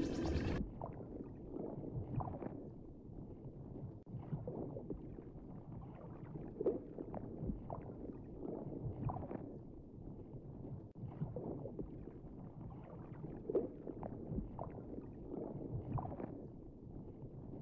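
Muffled water sloshing and gurgling, with soft irregular knocks every second or so.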